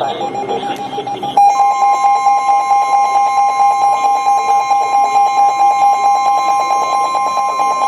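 Emergency alert tones before a weather warning: about a second and a half in, a loud, rapidly pulsing alarm beep sets in, and the steady 1050 Hz NOAA Weather Radio warning tone runs under it. The pair signals that a new warning broadcast is about to start.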